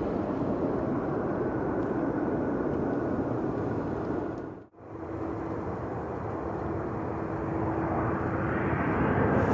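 Jet airliner engines, a steady rushing noise that cuts out sharply for a moment about halfway through. It resumes with a low steady hum underneath and grows louder near the end.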